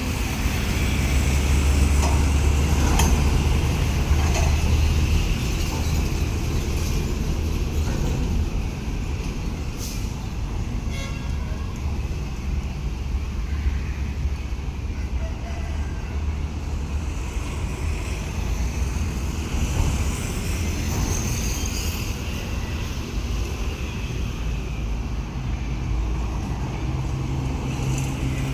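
Engine of a railway heavy track-maintenance vehicle running steadily while shunting with its ballast hopper wagons in a rail yard, a deep drone that is loudest in the first few seconds.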